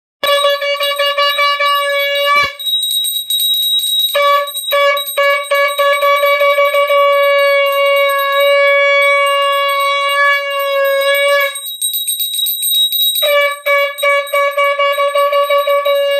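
Conch shell (shankh) blown in long, loud, steady blasts, breaking off about 2.5 s in, again about 4 s in and for over a second near 12 s, while a small brass puja hand bell is rung rapidly throughout. Conch and bell sounded together to close a Hindu puja.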